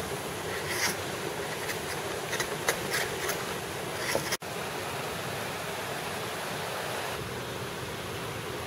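Bushcraft knife used as a drawknife, scraping shavings off a branch in a few short strokes over the steady rush of a stream. Partway through the strokes stop and only the stream is left.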